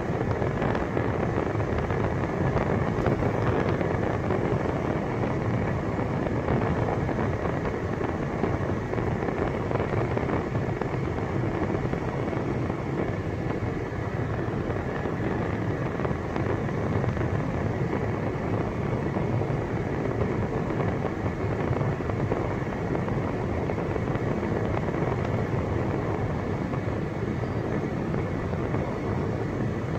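A car driving along a paved road: steady tyre and engine noise with no change in pace.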